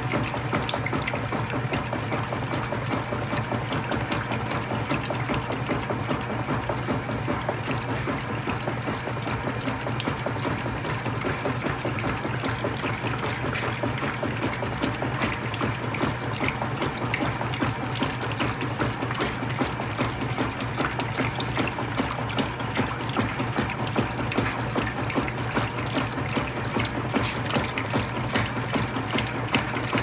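GE WCSR2090D2WW top-load washer in its wash agitation: the agitator drive runs with a steady low hum while the water and clothes slosh and churn in the tub.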